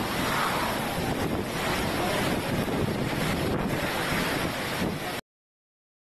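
Category 5 hurricane eyewall wind and driving rain buffeting the microphone, a dense, loud roar that swells and eases with the gusts. It cuts off abruptly about five seconds in.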